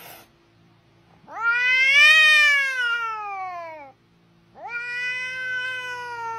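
A domestic cat meowing: two long, drawn-out meows, the first starting about a second in and rising then falling in pitch, the second beginning past halfway through and sliding slowly down.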